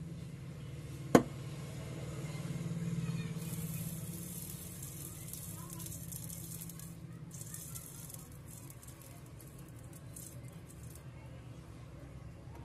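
A sharp click about a second in, then a high hiss with crackle for several seconds while soldering the phone's charging-socket pins, over a steady low hum.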